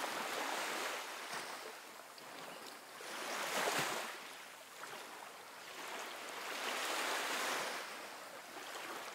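Ocean surf breaking on a sandy beach, a wash of noise that swells and ebbs with each wave, about every three to four seconds.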